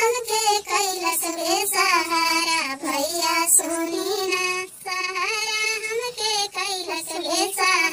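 A high-pitched voice singing a sad Bhojpuri song, with long held notes that waver in pitch and short breaks between phrases.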